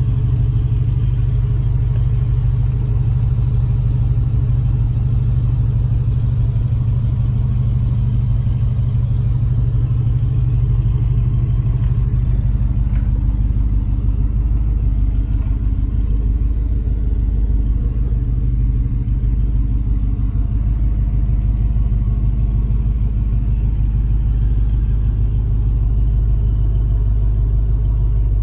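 1968 Chevrolet C-10 panel truck's 327 V8 with four-barrel carburetor idling steadily, heard from inside the cab.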